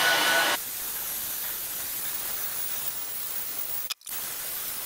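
Handheld hair dryer blowing air over a freshly painted fabric lampshade: a steady rushing hiss, louder for the first half second and then settling lower, with a brief break near the end.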